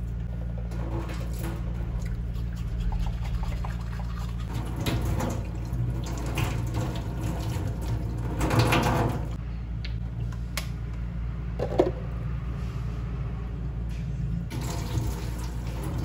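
Kitchen tap running into a stainless-steel sink, with louder splashes several times as water is caught in the hands for rinsing, and a few small clicks and knocks.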